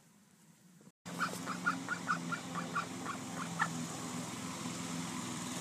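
Barnyard fowl calling, starting about a second in: a quick run of short calls, about four a second, then a few more spaced out, over a steady low hum.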